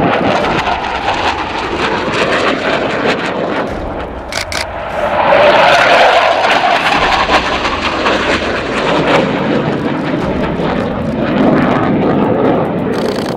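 Panavia Tornado GR4 jet, with its two RB199 turbofans, roaring past at low level. The roar dips briefly about four seconds in, then swells to its loudest around five to six seconds in.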